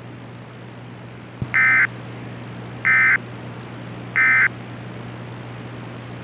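NOAA Weather Radio SAME end-of-message data tones: three short, raspy digital bursts, each about a third of a second, about 1.3 s apart, over a steady broadcast hiss and hum. They signal the end of the blizzard warning transmission.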